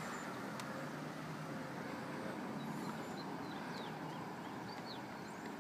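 Quiet outdoor ambience: a steady low hum of distant traffic, with a few faint high bird chirps in the second half.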